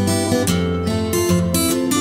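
Background music: an acoustic guitar strumming chords, the notes changing every fraction of a second.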